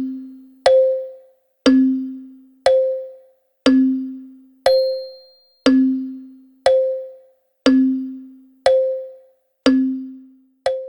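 Wall clock ticking about once a second, in an even tick-tock. Each tick is a sharp click with a short ringing tone, alternating between a lower and a higher pitch.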